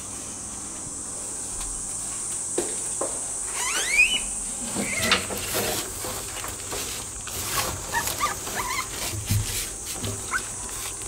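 Red panda cub squeaking: one rising squeal about four seconds in, then a string of short, high squeaks later on. Under the calls are scattered clicks and the rustle of cloth and hay as the cub is handled.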